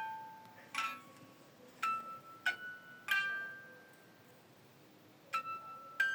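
Background music: a slow melody of single struck, bell-like mallet notes, each ringing briefly, with a pause of about a second and a half near the middle.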